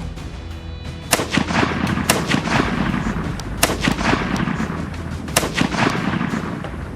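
A series of rifle shots, irregularly spaced and starting about a second in, each trailing off in a short echo, over a steady low hum.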